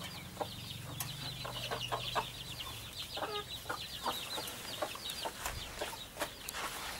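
Chicks peeping in a rapid, continuous run of high chirps, with a hen giving short clucks now and then.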